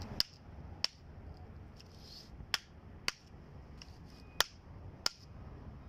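Hammer tapping a concrete kerb stone, about six sharp taps at uneven intervals, bedding the kerb down level to the string line.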